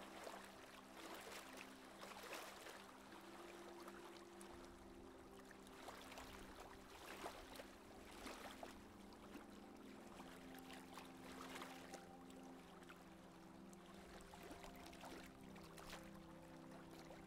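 Faint wash of water rushing and splashing along the hull of a monohull sailboat running downwind under its jib, in irregular surges. Soft, steady low tones lie underneath and shift to a new pitch about ten seconds in.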